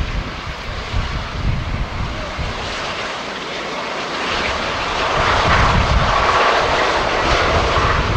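Airbus A350-900's Rolls-Royce Trent XWB jet engines running as the airliner rolls along the runway, a steady rushing noise that swells about halfway through and stays loud to the end. Gusts of wind rumble on the microphone underneath.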